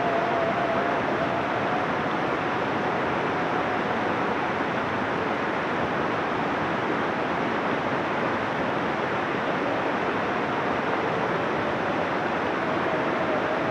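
Shallow river rushing over rocks in small rapids: a steady, even rush of water.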